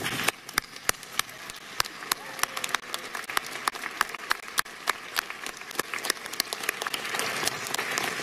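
A crowd applauding: a steady wash of clapping with many sharp individual claps close by, swelling a little near the end.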